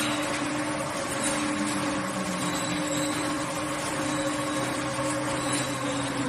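Corrugated cardboard production line running: a steady mechanical whir of machinery and conveyors with a few faint steady hums underneath.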